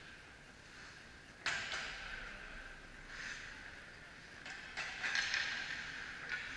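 Ice hockey play in an echoing indoor rink: skate blades scraping the ice and sharp knocks of stick or puck. One sharp hit comes about one and a half seconds in and trails off in echo, and a cluster of scrapes and knocks follows around five seconds in.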